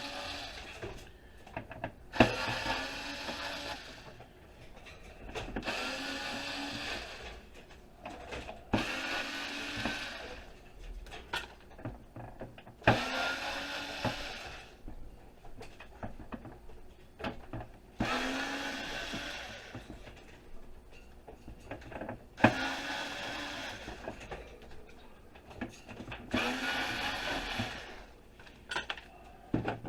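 Electric drill-driver run in short bursts, about eight times, each spinning up with a rising whine, with a few knocks and clicks of handling in between.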